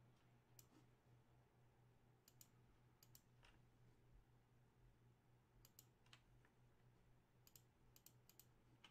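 Faint, scattered computer clicks, about a dozen, some in quick pairs, over a low steady hum.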